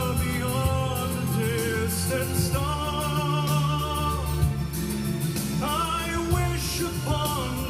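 A song playing: a singer's held notes with vibrato over instrumental backing.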